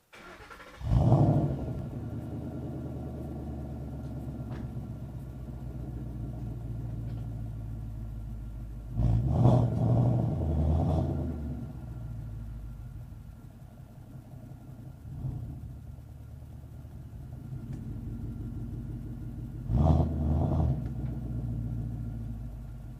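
Ford Coyote 5.0 V8 of a 2012 Mustang GT through a JBA axle-back exhaust with cat deletes and an X-pipe, heard at the tailpipes: the engine starts about a second in with a loud flare, settles to a steady idle, and is blipped twice in quick succession about halfway through and again near the end.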